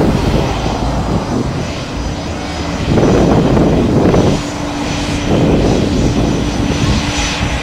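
Airplane engine running close by with a loud rumble that swells and eases, and a steady hum that comes in about halfway through.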